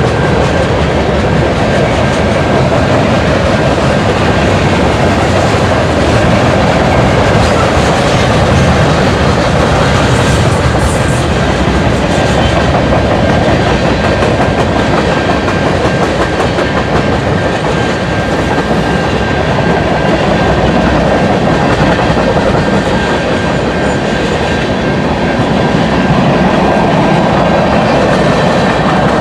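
A long CN manifest freight train's cars rolling steadily past, with the continuous rumble of steel wheels on the rails and a thin steady high ring over it.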